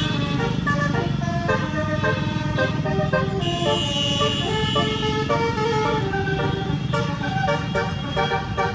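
A tour bus's 18-note basuri (telolet) musical air horn playing a tune of quick notes that step up and down, over a steady low engine and road rumble.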